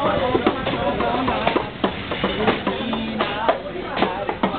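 Train wheels clattering over rail joints and points in quick, irregular knocks. A voice rises and falls in pitch near the start.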